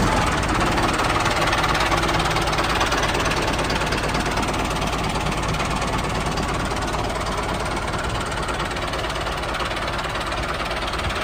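Mini tractor engine running steadily at idle with a rapid, even knocking beat, easing off a little toward the end.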